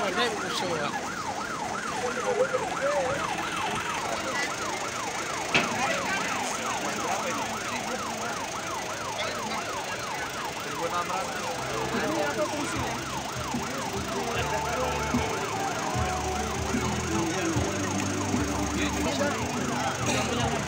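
Emergency-vehicle siren sounding a fast yelp, its pitch sweeping up and down about four times a second. Lower, steadier tones join about halfway through.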